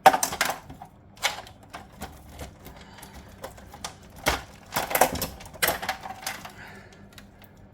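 Irregular clicks, knocks and small clatters of fuse box parts being pulled out and handled, with a few louder knocks at the start and in the middle.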